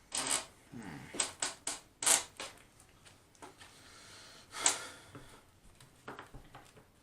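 Trading cards being set down, slid and tapped on a table: a quick run of sharp taps in the first couple of seconds, one loud slap a little past the middle, then a few lighter taps.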